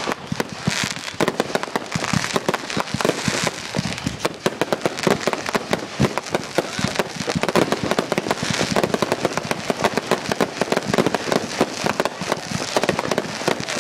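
Consumer firework cakes firing at once from several stations during a finale: a continuous barrage of overlapping bangs and pops, many a second, with no let-up.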